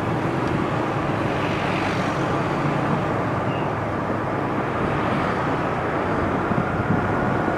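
Steady road traffic noise: vehicle engines running and tyres on the road, with no horn sounding.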